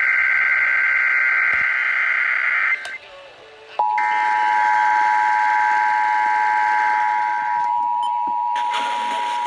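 Emergency Alert System Required Monthly Test tones. First the screeching SAME digital header data bursts, cut off shortly before three seconds in. About a second later the steady two-tone attention signal (853 and 960 Hz) starts and holds, with more header data sounding over it for its first few seconds.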